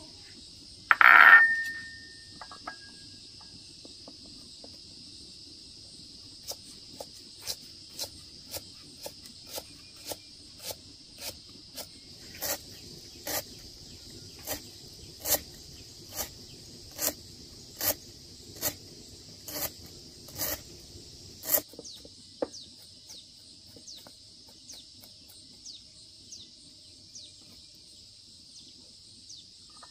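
Heavy kitchen knife chopping on a thick round wooden chopping block: evenly spaced strokes, about one and a half a second, growing louder, then from about two-thirds through, lighter, quicker mincing taps. One loud knock about a second in, and insects chirring steadily behind.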